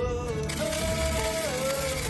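Background music with a held, gently bending melody line.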